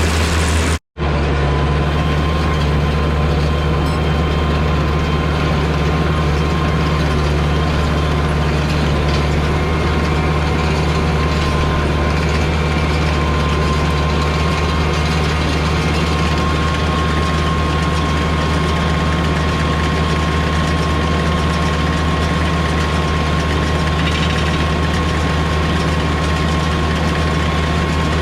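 Diesel engine of a White 2-135 tractor running steadily under load while pulling a New Holland BR770A round baler, with a thin steady whine over the engine. The sound drops out completely for a moment about a second in.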